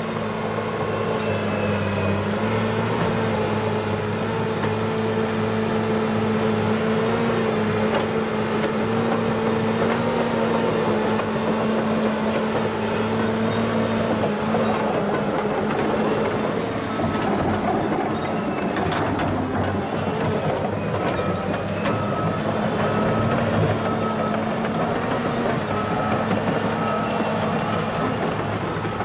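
Caterpillar 963C tracked loader's diesel engine running under load, a steady low hum, as the machine pushes sod and dirt with its bucket; a few clanks around the middle, and a regular high-pitched beeping comes in about halfway through.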